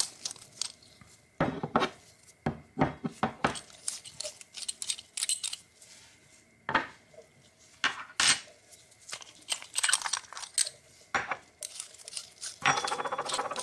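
A stainless steel and aluminium moka pot tamper being taken apart by hand: irregular metallic clicks and clinks as its threaded layers are unscrewed and the rings are set down on a wooden table.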